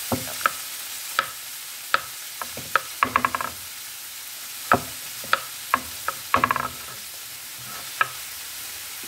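Kitchen knife slicing button mushrooms on a wooden cutting board: sharp taps of the blade on the board at irregular intervals, some in quick runs. Underneath, a steady sizzle of onions and peppers frying in a pan.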